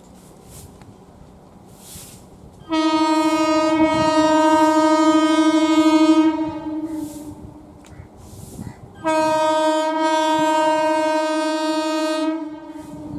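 Horn of an approaching MEMU electric train sounding two long steady blasts, each about three to four seconds, with a pause of about two seconds between them.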